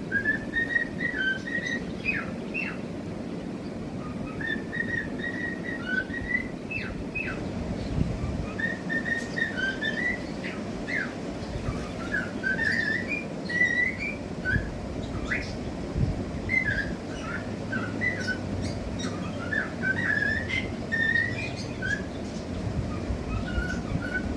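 Cockatiels whistling and warbling: runs of short chirpy whistle notes with quick upward sweeps, steadily through, over a low background hum.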